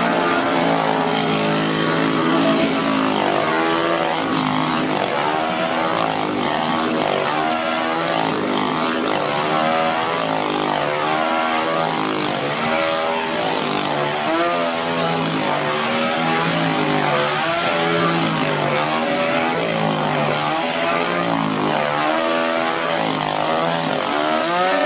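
A small two-stroke chainsaw engine runs continuously while it is juggled, its pitch swinging up and down about once a second as the saw turns through the air.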